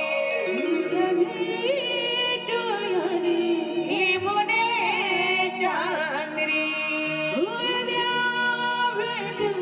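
A woman singing a Marathi gondhal devotional folk song in long, ornamented phrases that waver and glide in pitch, over a steady sustained musical accompaniment.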